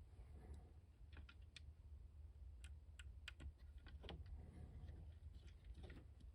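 Faint, irregular light clicks and taps, like small hard-plastic toy parts being picked up and handled on a work table.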